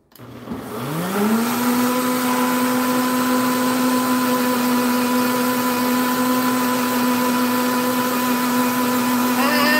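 High-speed countertop blender starting up: the motor rises in pitch over about a second, then runs steadily as it blends a liquid porridge mix.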